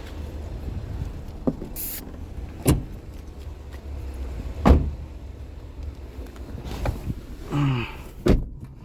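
Steady low cabin hum of a Chevrolet Onix turbo with several sharp knocks and clunks spread a second or two apart, from a loose seat being handled and refastened.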